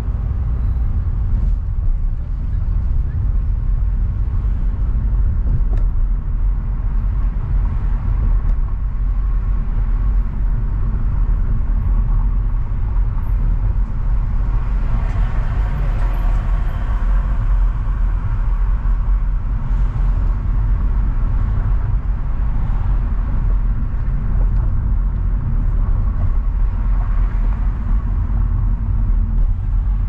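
Car driving through city streets: a steady low rumble of engine and road noise, with louder passing traffic about halfway through.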